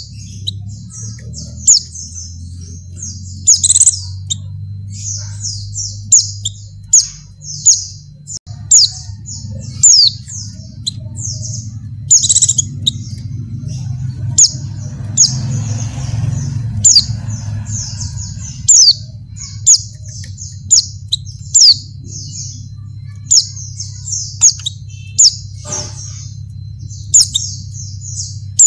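Female white-eye (pleci) calling in a rapid, continuous string of thin high chirps, with sharp downward-sliding notes standing out about once a second. It is presented as a female in breeding condition calling to a male, used as a lure to make males sing. A steady low hum runs underneath.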